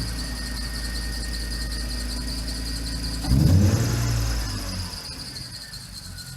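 BMW E36 328i straight-six engine running just after start-up, with a steady high-pitched squeal over it. The engine swells briefly about three seconds in, then runs quieter toward the end.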